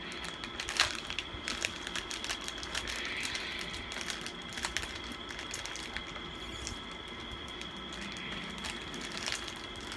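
Foil-lined plastic Pocky packet being handled and pulled open, an irregular scatter of crinkles and sharp crackles.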